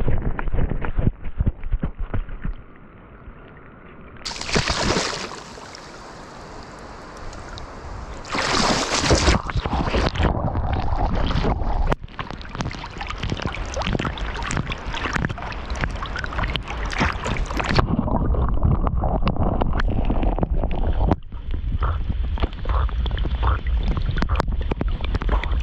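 A swimming dog's splashing and sloshing through river water, heard at water level from a camera strapped to its back, with a dense run of irregular splashes and paddling strokes. Two short louder, brighter rushes of splashing come about four and eight seconds in, and the sound turns dull and muffled for the last third.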